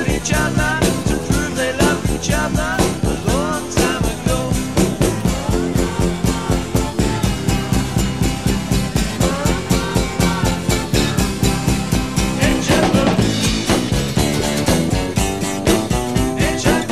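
Background music with a steady fast beat.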